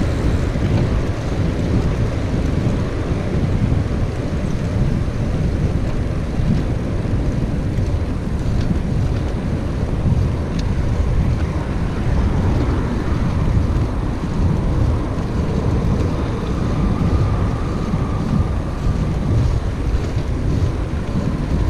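Wind buffeting the microphone of a bicycle-mounted camera while riding, a steady low rumble that flutters unevenly, mixed with the hiss of tyres on the road.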